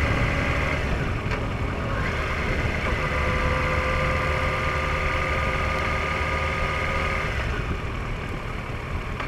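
Motorcycle engine running at a steady low town-riding speed, with wind and road noise on a bike-mounted camera. A steady whine sits over the rumble from about two seconds in until near the end.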